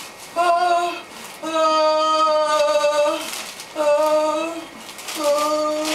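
A woman in labour moaning in long, drawn-out vocal sounds while pushing, four held tones at a steady pitch, the longest about two seconds.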